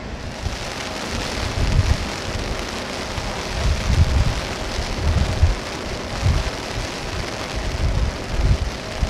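Heavy rain falling with a steady hiss, with irregular low rumbles of wind buffeting the microphone.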